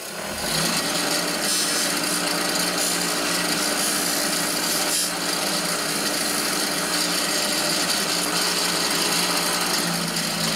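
Delta 6-inch bench grinder running, with the cut end of a white plastic cutting-board strip pressed against the wheel to smooth it. The grinding noise starts about half a second in over the steady hum of the motor.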